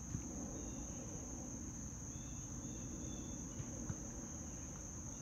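Steady high-pitched insect drone of crickets over a low outdoor background rumble, with a few faint taps.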